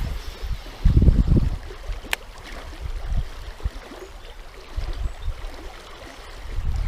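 Fast-running stream water rushing steadily, the current strong after heavy rain. Low rumbles about a second in and again around five seconds, and one sharp click about two seconds in.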